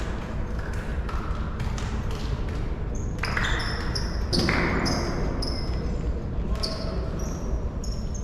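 Sounds of an indoor football match in an echoing sports hall: repeated thuds of a ball being kicked and bouncing on the hall floor, short high squeaks of sports shoes on the floor, and players' voices.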